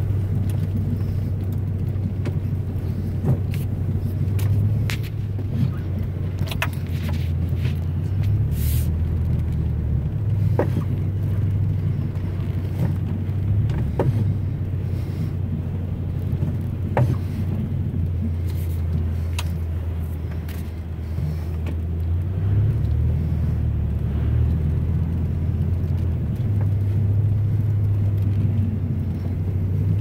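Low, steady drone of engine and tyres heard from inside a car's cabin while driving on a snow-covered highway, with scattered light ticks.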